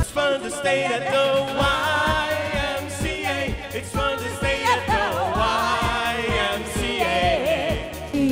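Pop song played by a live band: a singer over a drum kit keeping a steady beat.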